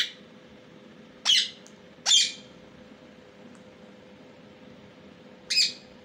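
Rose-ringed parakeet giving short, shrill squawking calls: one at the start, two in quick succession a little over a second in, and one more near the end.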